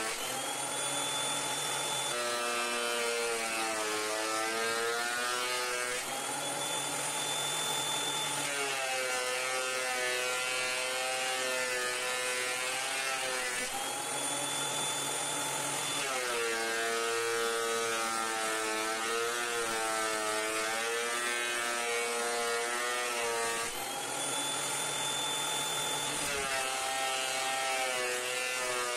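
Benchtop thickness planer planing wood boards: the motor's whine sags and wavers in pitch each time a board is under the cutterhead, then returns to a steady, higher whine between boards, over four passes.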